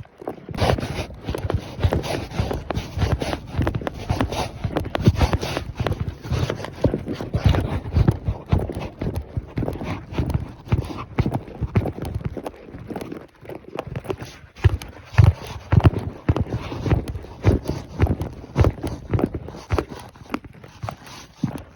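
A ridden horse's hooves striking the ground in a steady, continuous run of hoofbeats, several a second, with a brief lull about two-thirds of the way through.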